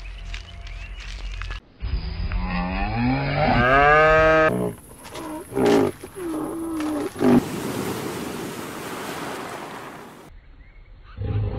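A series of deep animal calls: a long call with many overtones that rises in pitch, then two shorter calls, followed by a few seconds of rushing sea water.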